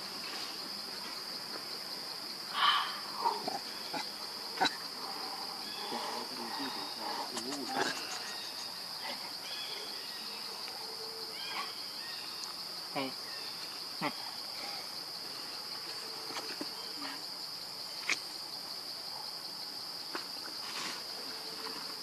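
Steady high-pitched drone of insects in the forest, one unbroken note. A few brief louder sounds break in over it, the loudest about two and a half seconds in.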